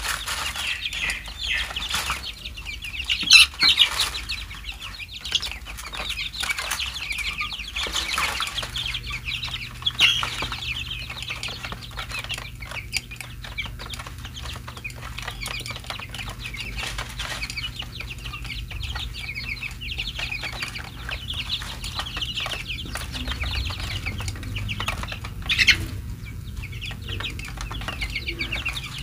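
A flock of young chicks peeping continuously in a high-pitched chatter while pecking at grain in a plastic feed tray, with light tapping from the pecking; a few louder peeps stand out about 3, 10 and 25 seconds in.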